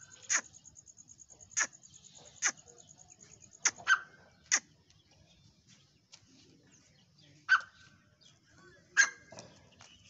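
Gray francolin (teetar) giving harsh, sharp single call notes, about eight in all, roughly a second apart with a pause of a few seconds midway.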